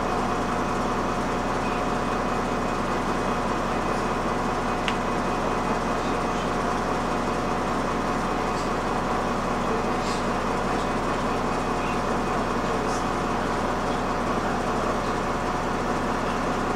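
City bus running steadily, heard from inside the passenger cabin: a constant hum with steady tones, a few faint rattles and clicks.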